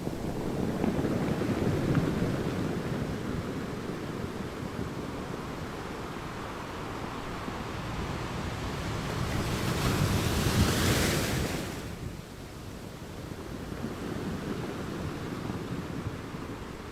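Waves washing onto a beach: a steady surf wash that swells and ebbs, with one larger wave building to a loud, hissing break about ten seconds in and falling away quickly after.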